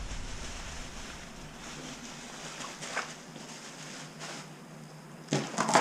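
Muffled rubbing and rustling of a phone's microphone against clothing inside a pocket, with a couple of small clicks and a louder cluster of knocks and scuffs near the end.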